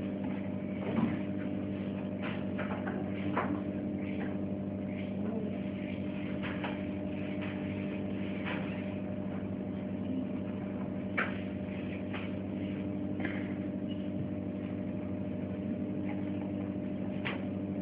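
Steady electrical hum of a switched-on ultrasonic plastic-tube sealing machine, with a few faint clicks scattered through it.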